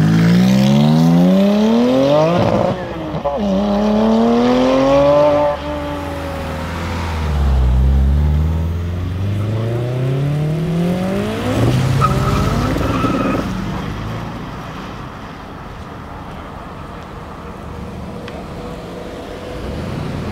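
Tuned cars accelerating hard in turn. The 9ff-tuned Porsche 997 Turbo S's twin-turbo flat-six pulls away at full throttle, revs climbing with a gear change about three seconds in, then dropping away at about six seconds. A second car accelerates from about seven seconds, its revs rising until about twelve seconds, followed by a short high whine, with quieter distant engine noise after that.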